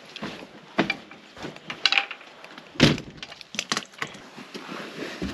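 Irregular short clicks and knocks, about nine in all, the loudest about three seconds in.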